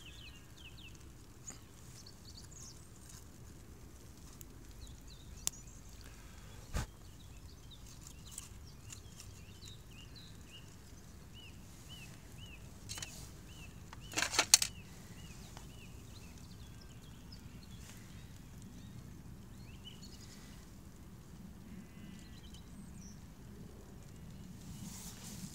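Outdoor ambience with a small songbird chirping: short high notes repeated two or three times a second, in runs near the start and again toward the middle. A few sharp clicks and one short loud noise about halfway through stand out over a low steady background rumble.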